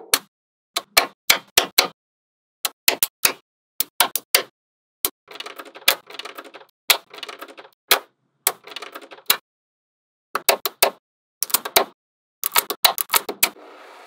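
Small magnetic balls clicking sharply as they snap onto one another, in quick clusters of several clicks, some trailed by a brief rattle, with silent pauses between clusters.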